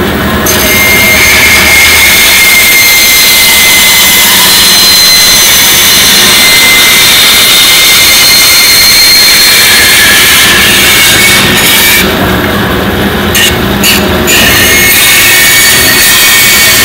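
Vertical bandsaw cutting a white plastic panel along a traced line: a loud, steady cutting noise over the running saw. The high cutting sound breaks off briefly a few times between about twelve and fourteen seconds in.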